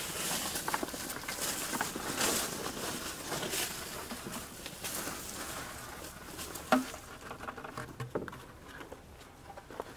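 Used coffee grounds poured from a bucket, pattering down onto a layer of vegetable scraps in a compost bin. The patter is heaviest over the first few seconds, then thins to scattered patters.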